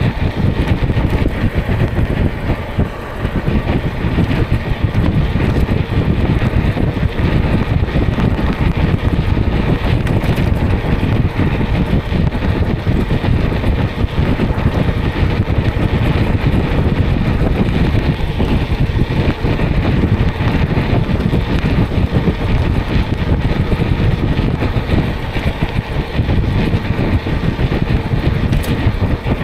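Steady wind rush buffeting the microphone of a moving e-bike, mixed with road and traffic noise.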